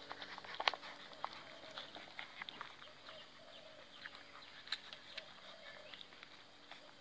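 Puppies suckling at their mother: irregular wet smacking clicks from the nursing, with a few faint short whimpers in the middle of the stretch.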